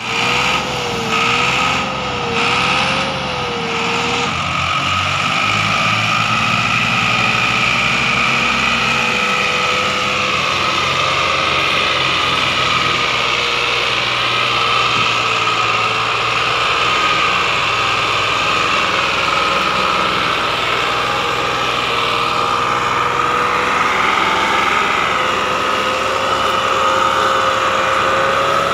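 Tractor's diesel engine running hard under the load of a trolley piled high with sugarcane, black smoke pouring from the exhaust. For the first few seconds the revs rise and fall, then the engine settles into a steady note with a high whine over it.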